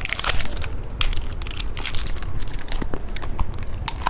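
Plastic candy packaging crinkling as it is handled and torn open, a dense run of short crackles.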